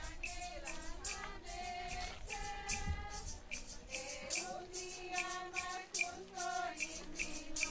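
A group of women and children singing a posada procession song together, with hand percussion keeping a steady beat about twice a second.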